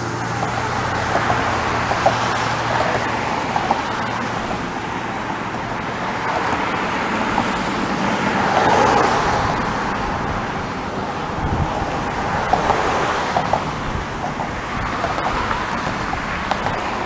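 Road traffic passing on a bridge: car engine and tyre noise that swells and fades as each vehicle goes by, loudest about halfway through. A steady low hum sits under it for the first few seconds.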